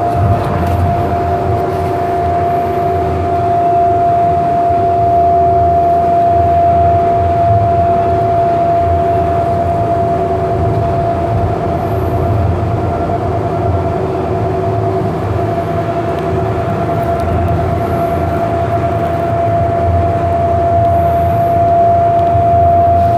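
Siemens S200 light rail vehicle running, heard from inside the car: a steady rumble of the wheels on the track with a constant whine throughout.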